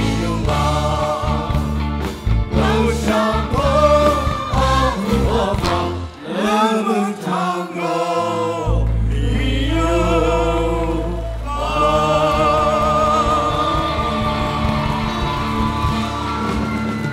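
Mixed group of male and female singers singing together in unison over a band with keyboard and drums, the song closing on a long held note with vibrato.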